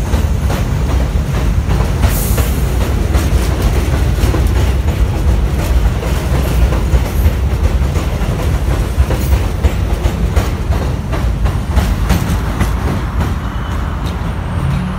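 R62A subway train pulling out of the station, its cars passing close with a steady low rumble and a quick clicking of wheels over the rail joints. There is a brief high hiss about two seconds in, and the noise thins a little near the end as the last car goes by.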